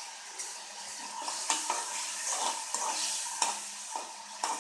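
A spoon stirring the hot dhokla tempering liquid (oil and water with mustard seeds, curry leaves, sugar and salt), knocking and scraping against the vessel two or three times a second over a steady sizzling hiss.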